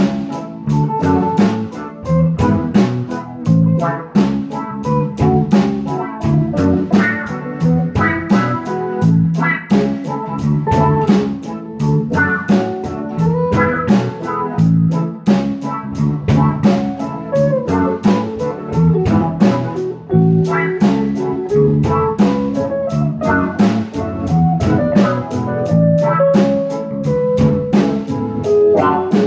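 Music with a steady beat and a moving melody line throughout.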